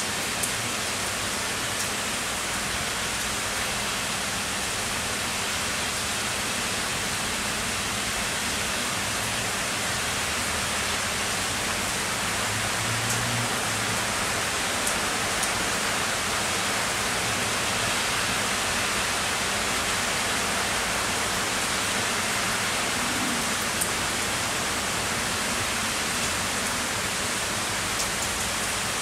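Heavy rain falling steadily, a dense even hiss, with a few sharp ticks here and there.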